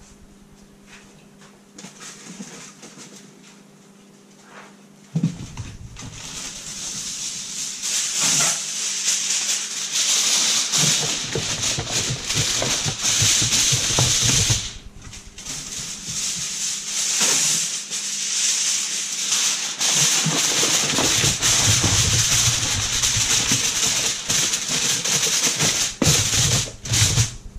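Aluminium foil being pulled from its roll, then crinkled and pressed down over a disposable aluminium baking pan. It makes a loud, dense rustling crackle that starts about five seconds in and goes on with brief pauses.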